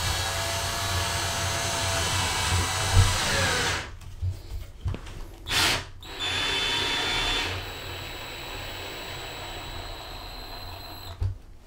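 Cordless screwdriver with a Phillips bit driving a self-tapping plastic anchor into drywall. It runs in spurts: a run of about four seconds, a brief burst, then a run of about five seconds that gets quieter partway through as the anchor seats flush. A light knock comes near the end.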